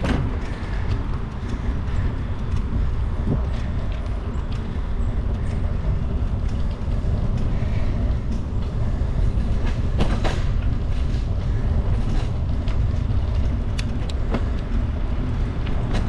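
Steady low rumble of wind on the microphone mixed with bicycle tyres rolling over a paved path, with scattered small clicks and ticks.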